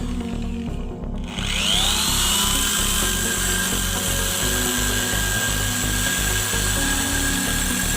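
Small electric motor of a homemade drill spinning up with a rising whine about a second and a half in, then running steadily at speed.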